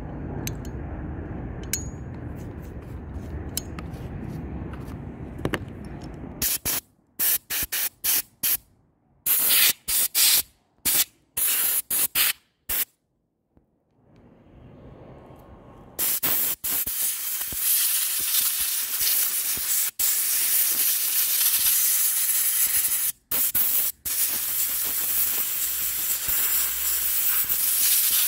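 Compressed-air blow gun blowing dust out of a chainsaw's flywheel fan. After a low rumble for the first six seconds or so comes a run of short, sharp hissing blasts, a brief pause, then a long steady hiss broken by a few short gaps.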